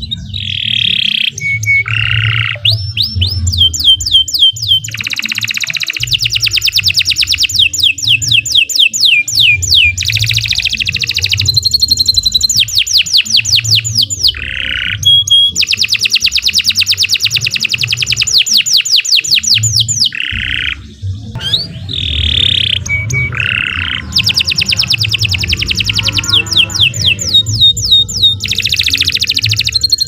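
Domestic canary singing a long, vigorous song of fast trills and rapidly repeated notes, phrase after phrase with only brief breaks, including a short pause about twenty seconds in.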